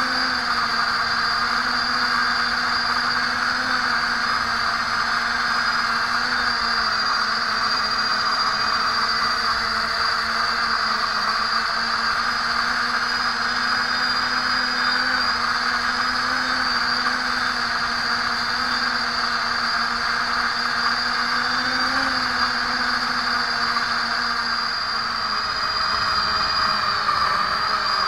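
Quadcopter's small brushless motors and propellers whining steadily in flight, heard close up from a camera mounted on the drone, over a steady rushing hiss. The pitch wavers slightly with throttle changes.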